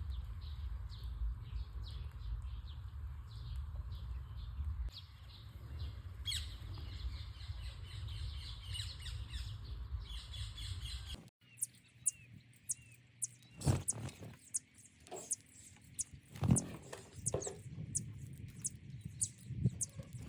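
Small birds chirping rapidly and repeatedly over a steady low rumble. About halfway through, the sound changes abruptly: the rumble stops, the chirps become sparser, and several sharp knocks sound.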